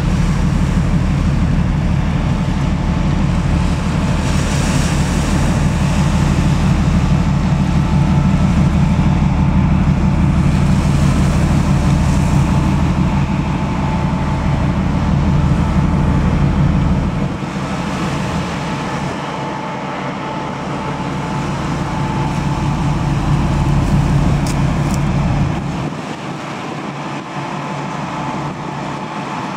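Cargo ship's diesel engine droning low and steady as the ship passes close by. The drone drops off sharply about two-thirds of the way in, and again near the end.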